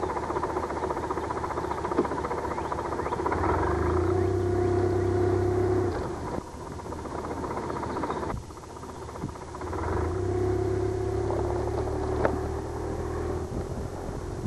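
Motorcycle engine running under way, picked up by a camcorder mounted on the bike. It pulls harder twice, from about three to six seconds in and again from about ten to thirteen seconds, and eases off in between. A couple of sharp knocks come through.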